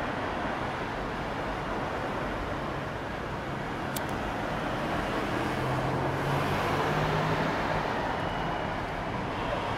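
City street traffic: a steady rush of passing cars, with one vehicle's low engine hum swelling a little past the middle. A single sharp click sounds about four seconds in.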